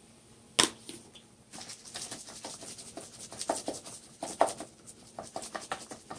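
Kitchen handling sounds while cheese goes into the stir-fry pan: one sharp knock, then a quick, irregular run of light scratches and taps.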